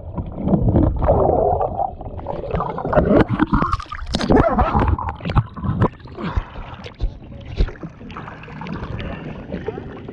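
Sea water churning and bubbling around a submerged GoPro, muffled, with many knocks against the camera housing. After about six seconds it comes up at the surface and the sound turns to softer splashing and lapping water.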